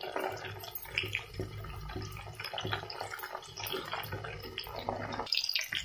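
Parboiled drumstick (moringa pod) pieces sizzling and crackling in hot mustard oil, stirred with a slotted spoon. The sizzle is water left in the boiled pods cooking off in the oil; once it dies down, the pieces are done.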